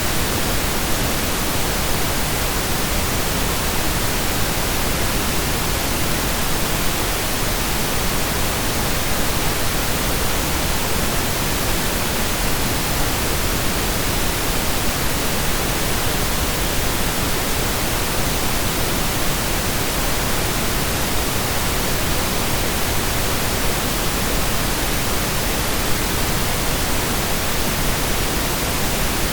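Steady synthesized pink noise: an even, unchanging hiss spread across the whole range, like steady rain or a waterfall, with no tones, clicks or changes.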